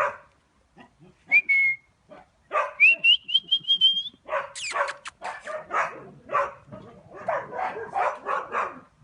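A person whistles to call a dog: a short note, then a longer whistle that rises and warbles. Then a dog barks in a quick, repeated run.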